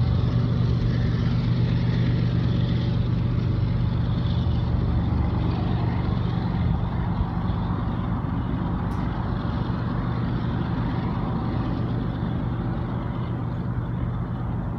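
Diesel freight locomotives running with a steady low engine drone that slowly fades, and one short click about nine seconds in.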